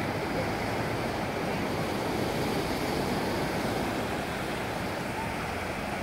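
Small sea waves breaking and washing up a sandy beach: a steady surf wash with no single crash standing out.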